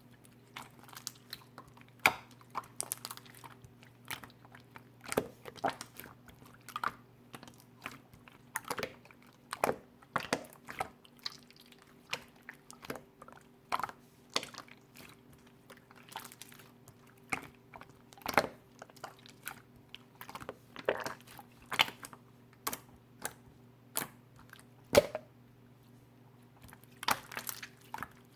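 Green slime being squished and poked by hand, making irregular sharp clicks and pops of trapped air, several a second.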